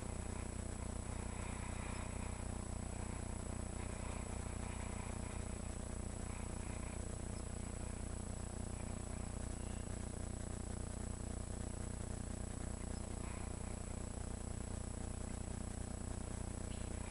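Steady outdoor background noise: a low rumble and hiss with a constant thin high-pitched whine, and no distinct event.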